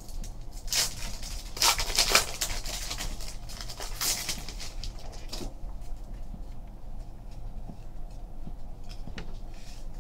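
Foil wrapper of a trading card pack crinkling as it is torn open, in a few rustling bursts over the first half, then fainter rustle and light ticks of the cards sliding against each other as they are handled.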